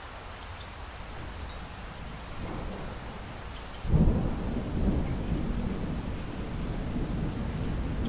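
Steady rain falling, with thunder breaking suddenly about halfway through and then rumbling low through the rest.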